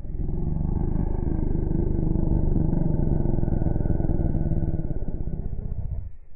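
A motor vehicle's engine running steadily, starting abruptly and cutting off about six seconds in.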